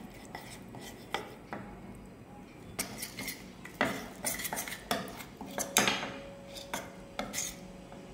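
Steel spoon stirring a thick paste in a small stainless steel bowl, with irregular clinks and scrapes of metal on metal.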